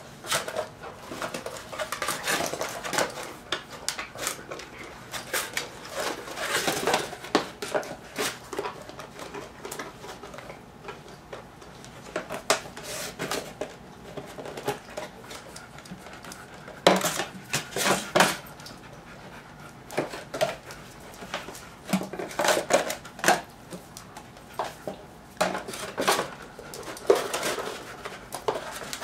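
A puppy's metal food bowl clattering and scraping on a tile floor as the puppy noses and licks it around, in irregular spells of clatter with short pauses.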